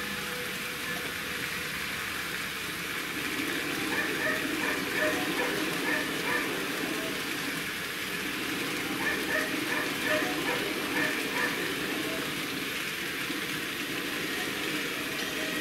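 N-scale model train running along the layout track: a steady hum of motor and wheels that grows louder from about three seconds in, with scattered light ticking.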